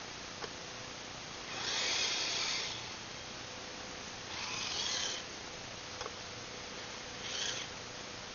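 Radio-controlled Blizzard SR snow tractor model driven in short spurts: its electric motor and gears whine in three bursts, the longest about two seconds in and the shortest near the end.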